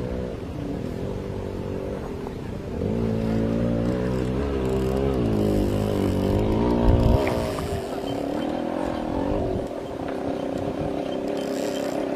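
An engine running, its pitch wavering up and down and growing louder for a few seconds, with a short knock about seven seconds in, then settling to a steadier hum.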